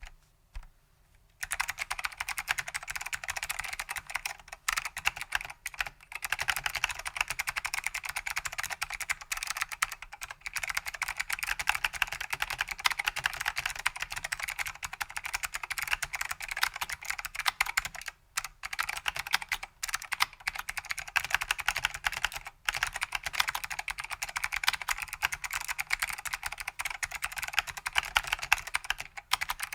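Fast, continuous typing on a vintage Datacomp DFK-191 keyboard with clicky SKCM White Alps switches and ABS keycaps: a dense run of key clicks. It starts about one and a half seconds in and pauses briefly twice.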